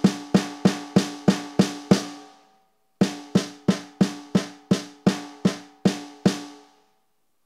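ATV aDrums Artist electronic drum kit: a single pitched drum sound, a pad struck evenly about three times a second, each hit ringing briefly. There are two runs of strokes with a pause of about a second between them, played while the module's kit volume is being adjusted.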